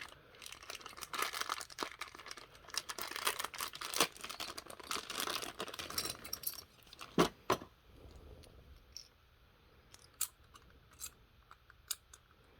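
Packaging being handled and rustled, dense with small clicks for about six seconds, then only a few scattered light clicks.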